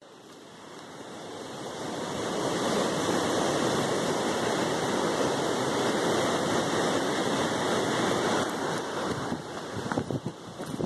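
Steady rushing noise on the camera's microphone, swelling over the first couple of seconds and turning choppier near the end, with a few sharp knocks.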